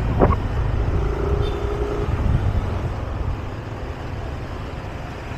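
Yamaha scooter ridden at low speed, wind buffeting the rider's camera microphone over the low hum of the small engine and road. It grows quieter in the second half as the scooter slows.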